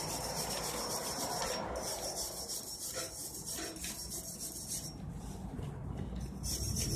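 A brush scrubbing rust off a chrome-plated steel cart handle, a steady rubbing scrape.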